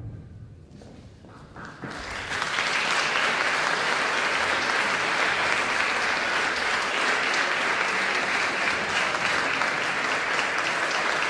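The echo of a choir's final chord fades in a reverberant hall, then audience applause starts about two seconds in and runs on steadily.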